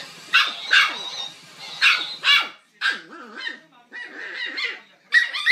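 Small toy dog yapping: a string of short, high-pitched barks, about half a dozen, with short gaps between them.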